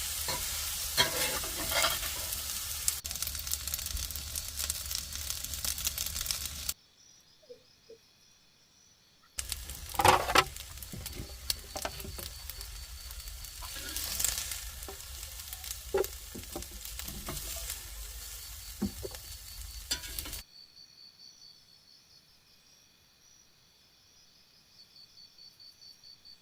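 Food frying and sizzling in a skillet, with sharp clicks and scrapes of stirring. It breaks off twice, at about 7 s and 20 s, to a quiet stretch where insects, likely crickets, keep up a steady high pulsing chirp.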